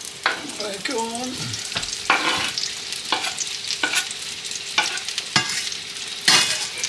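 Mushrooms and diced bacon lardons sizzling in a hot frying pan, with a knife scraping and knocking on a wooden chopping board at short, uneven intervals as the lardons are pushed into the pan. A louder burst of sizzling comes near the end as more meat hits the hot oil.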